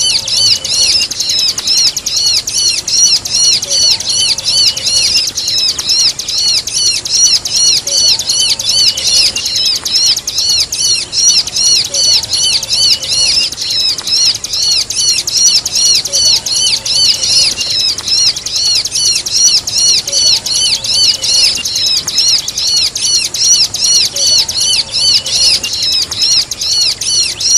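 Bar-winged prinia (ciblek) calling in an unbroken, rapid string of shrill, arched chirps, the 'kejepit' (pinched-bird) style call.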